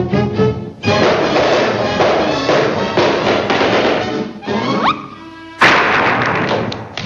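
Orchestral cartoon score: short staccato notes, then a busy full-orchestra passage with a rising slide near the end of it. After a brief lull comes a sudden loud hit about five and a half seconds in.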